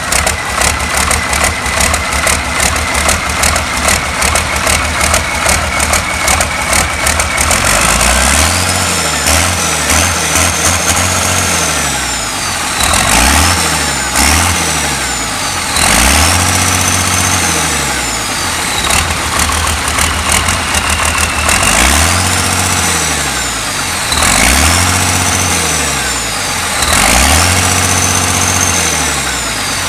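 Freshly overhauled Cummins diesel engine running on its test. It idles for the first several seconds, then is revved up and let fall back over and over, about every two to three seconds.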